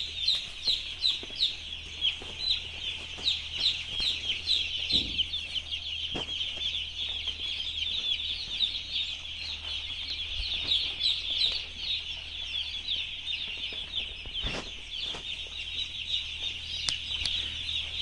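Hundreds of day-old broiler chicks peeping all at once: a dense, continuous chorus of short high chirps overlapping one another, with a low steady hum underneath.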